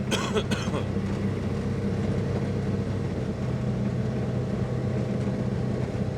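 Ranger side-by-side utility vehicle's engine running steadily, with a few sharp clicks and rattles in the first half second.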